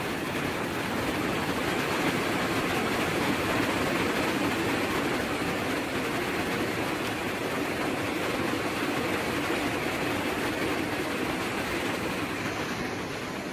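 Steady rushing background noise, an even hiss and rumble with no rhythm or pitch, holding level throughout.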